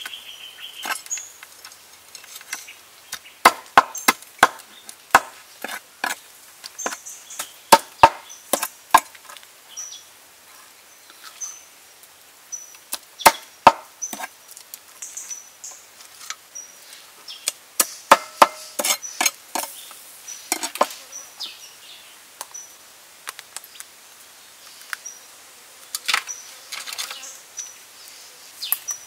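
Cleaver chopping on a wooden chopping board while trimming blue prawns: sharp knocks in quick clusters of several strokes, with pauses between. A faint high chirp repeats about once a second behind them.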